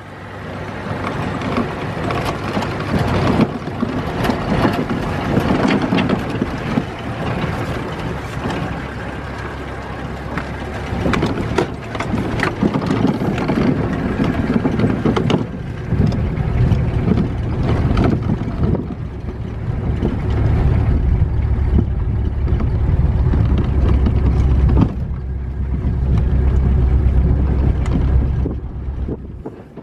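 Pickup truck driving on a gravel road: continuous road noise scattered with short knocks from stones and gravel. A low rumble grows stronger about halfway through.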